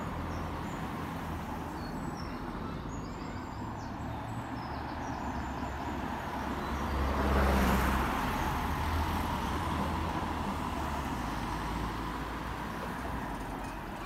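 Cars driving past on a road, with engine rumble and tyre noise. A Volkswagen Touran passes close about halfway through, the loudest moment.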